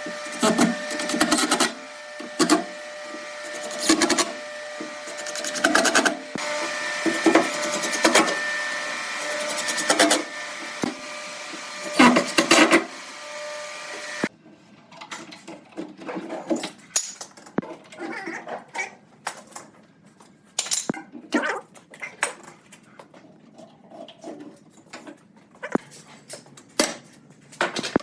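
A woodworking power tool running with a steady hum, cutting into wood in repeated loud strokes about every second or two. About halfway through it gives way to quieter, scattered taps and knocks of hand work on wood.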